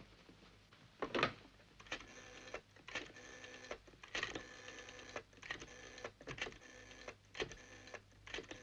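Rotary telephone being dialled: a string of rapid clicking runs of differing length as the dial spins back after each digit, with a louder knock about a second in.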